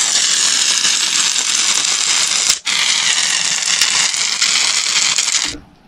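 Aerosol can of shaving foam spraying with a loud, steady hiss as foam is laid over blocks of gym chalk, in two long sprays with a short break about two and a half seconds in, stopping shortly before the end.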